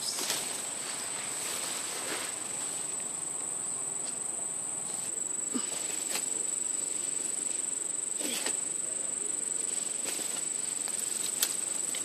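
Steady, high-pitched insect chorus drone holding one pitch, with a few brief rustles and clicks.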